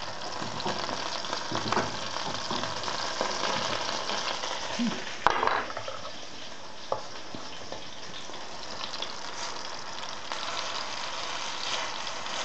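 Hake fish cakes sizzling steadily in hot oil in a frying pan, with a metal fork scraping and clinking in a bowl of leftover fish mince; a sharp clatter stands out about five seconds in, followed by a lighter click.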